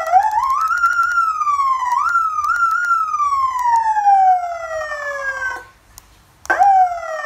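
Electronic vehicle siren from a light bar's siren amplifier and speaker, sounding a wail tone. The pitch climbs, sags slowly, is pushed back up twice, then falls in one long slide and cuts off about five and a half seconds in. After a short gap a new siren sweep starts and drops quickly near the end.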